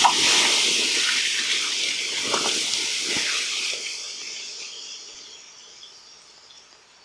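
Bucket of water poured onto a hot campfire: the coals hiss loudly as the water flashes to steam, with splashing and a couple of sharp pops in the first few seconds. The hiss starts suddenly and fades away slowly over several seconds as the fire is quenched.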